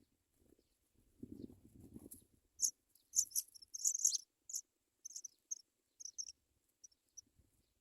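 African pipit nestlings cheeping to beg, in high, thin chirps. A rapid cluster of short calls comes about three seconds in, then fewer, scattered cheeps. A faint low rumble comes before the calls.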